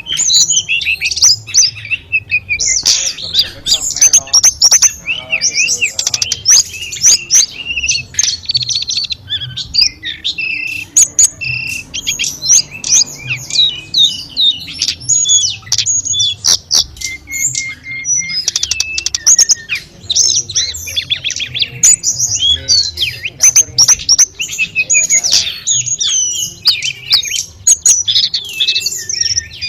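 A tledekan gunung songbird singing a fast, varied song of chirps, trills and whistled phrases almost without pause, over a steady trickle of water.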